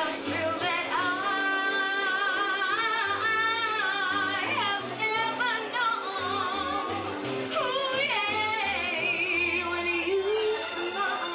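A woman singing with vibrato over instrumental accompaniment, holding long notes and sliding down in pitch twice, about four and eight seconds in.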